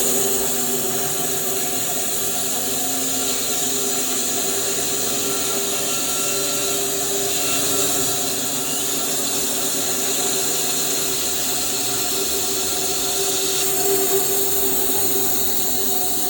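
Rhino R750 portable band sawmill running steadily at cutting speed, its band blade sawing through a camphor log.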